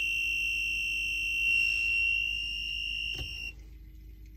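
Two-pole voltage tester beeping one steady high-pitched tone while its probe is on a live terminal in the wiring centre, signalling that voltage is present. The beep cuts off about three and a half seconds in, just after a single click.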